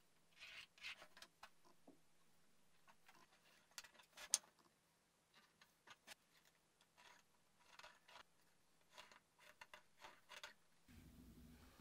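Near silence with faint pencil scratches and light taps of a metal square and a plastic circle template on plywood as parts are marked out; one sharper click about four seconds in.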